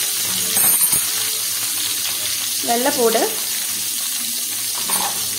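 Sliced onions frying in hot sunflower oil in a metal kadai: a steady sizzle, with a few light knocks about a second in.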